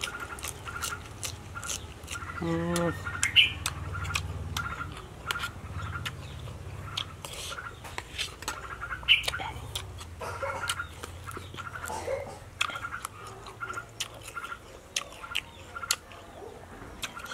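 Close-up eating sounds: chewing and smacking with many sharp mouth clicks, while a bird chirps over and over in the background, about twice a second.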